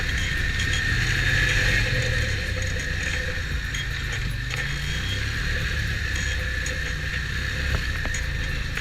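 Stels Vityaz snowmobile running steadily, its engine and drive giving an even mechanical drone.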